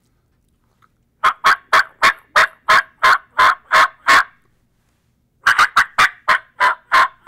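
Latex diaphragm turkey mouth call blown in imitation of a hen turkey: a run of about ten short notes, slowing slightly as it goes, then after a pause of about a second a second run of about eight notes that begins quicker.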